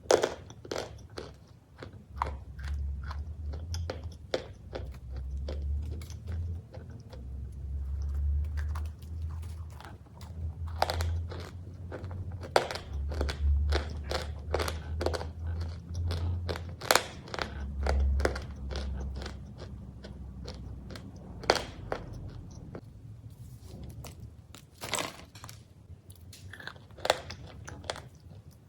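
Crunchy cookies being bitten and chewed close up: a dense, irregular run of sharp crunches with a low rumble beneath, a few crunches standing out louder in the second half.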